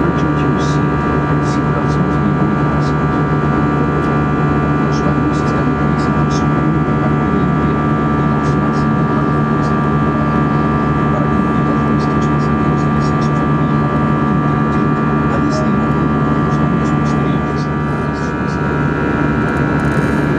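Jet airliner cabin noise in the climb after take-off: a steady engine drone and rush of air, with several steady whining tones over it.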